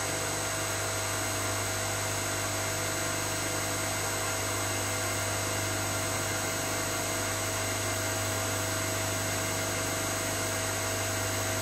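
Inverter-driven three-phase electric motor running a Bendpak vehicle-lift hydraulic pump at full speed (50 Hz): a steady hum with a fainter steady whine above it. The valve is held open, so the pump is building pressure in the press cylinder towards 3000 psi.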